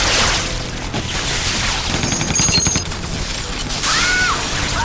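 Film shootout: automatic gunfire with crashing impacts. About four seconds in comes a woman's scream, rising then falling.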